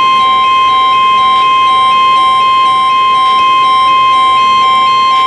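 NOAA Weather Radio 1050 Hz warning alarm tone: one steady, loud, high beep held without a break, the signal that an emergency alert, here a severe thunderstorm watch, is about to be read. A fainter beep pulses under it about three times a second.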